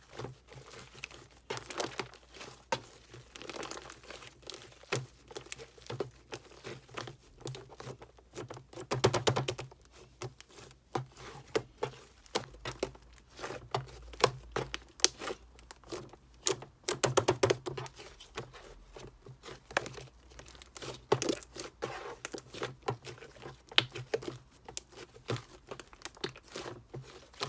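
Clear slime mixed with shaving foam being squished and worked by hand, giving many irregular small pops and clicks, with longer, louder squishes about nine seconds in and again about seventeen seconds in.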